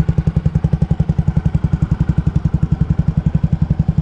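Modified Honda Twister 250's fuel-injected single-cylinder engine idling steadily through an aftermarket megaphone exhaust, an even beat of about a dozen exhaust pulses a second.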